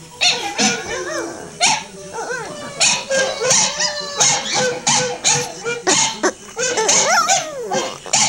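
Boston Terrier howling, the howls rising and falling in pitch and broken by short barks, mixed with her own recorded howling playing from computer speakers.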